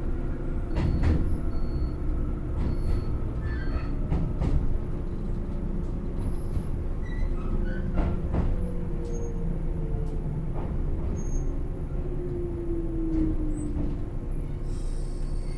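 JR 107 series electric train standing at a station, heard from inside the car: a steady electrical hum from its onboard equipment, with a few faint falling whines and scattered clicks.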